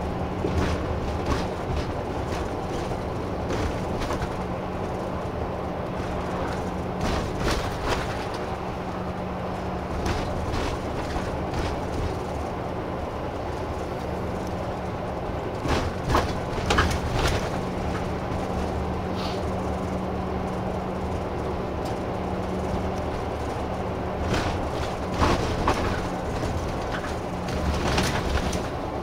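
Interior of a route bus under way: steady engine and road drone, with loose clicks and rattles now and then.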